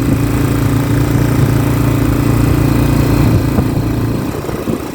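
Motorcycle engine running steadily while riding uphill, its note dropping and getting quieter about four seconds in.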